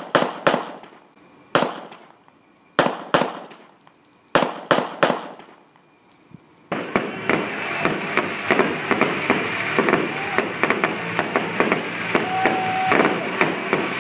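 About ten sharp, separate bangs in small groups, heard from a distance, with echoing tails. At about seven seconds they give way to the dense, continuous crackle of a fireworks display, many small pops running together.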